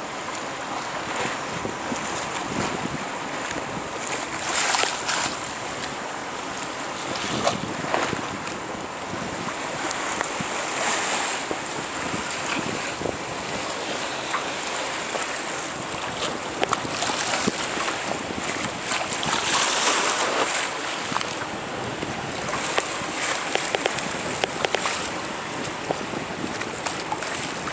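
Wind buffeting the microphone over the rush and splash of choppy sea water, swelling in gusts every few seconds with a few sharp slaps.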